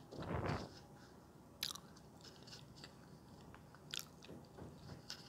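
Close-miked mouth sounds of eating soft, creamy durian flesh: faint wet chewing with a few sharp lip smacks, after a short breath at the start.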